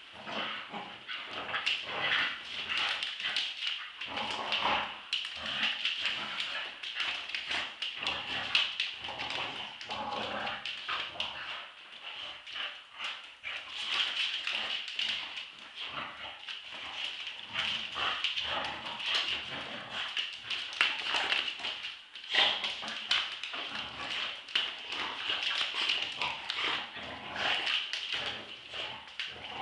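Two Staffordshire bull terriers in a play tug of war, growling, with many quick, irregular clicks and scuffles of their claws and paws on a hard floor.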